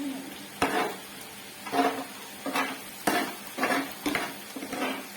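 A metal utensil scraping and clacking on a hot Korean barbecue grill pan, about seven irregular strokes as the meat is turned and charred, over sizzling meat.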